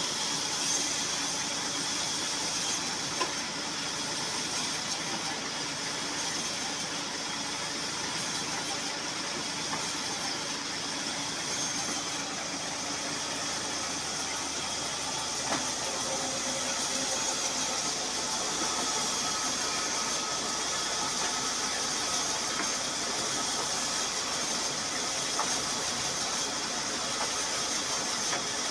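Large band saw driven off a Massey Ferguson 240 tractor's PTO, running steadily as wooden blocks are fed through the blade, with a constant high hiss over the steady run of the tractor's diesel engine.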